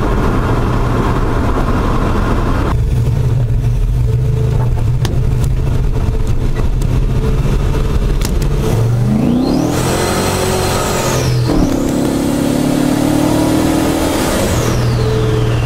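Turbocharged Ford 302 V8 in a Ford Ranger cruising, then accelerating hard: the turbo whine rises to a very high pitch with the engine note climbing under it, dips briefly, climbs and holds again, then falls away as the throttle lifts.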